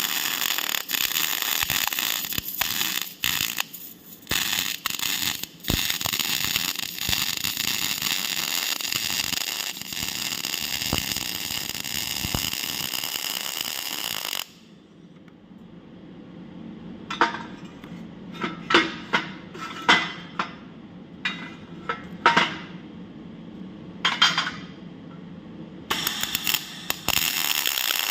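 Electric arc welding: the arc's steady crackling hiss, with a few brief breaks, stops about halfway. A series of sharp metal taps and clinks follows, and the arc strikes up again near the end.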